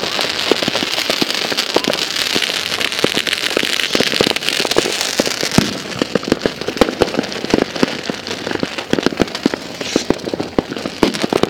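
Fireworks crackling: a dense run of rapid, irregular pops over a steady hiss, the hiss fading about halfway through while the popping goes on.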